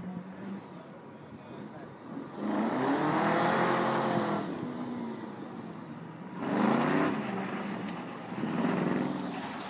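Triumph TR7 V8 engine revving hard in three bursts, each rising and then falling in pitch: a long pull about two seconds in, a short sharp one near the middle and a smaller one near the end.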